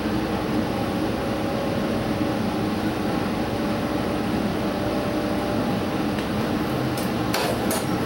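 Diesel express train running, heard from inside its front observation car: a steady rumble of running noise with a low engine drone. A few sharp clicks come near the end.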